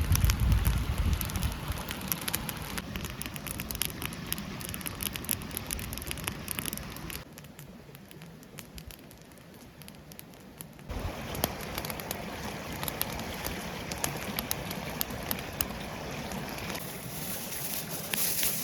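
Campfire cooking: a steady hiss thick with small crackles and pops. About seven seconds in it drops to a quieter hiss for a few seconds, then the crackling comes back.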